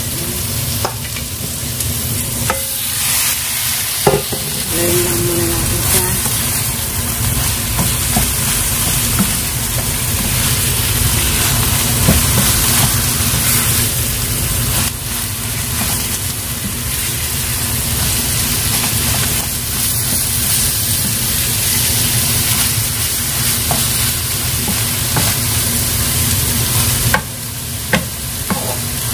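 Ground pork sizzling in a frying pan with browned onion and garlic, stirred with a spatula, with scattered short knocks of the spatula against the pan.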